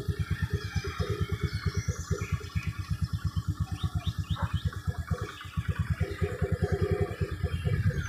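Motorcycle engine idling with an even, rapid putter, about eight to nine beats a second, which briefly dips about five seconds in.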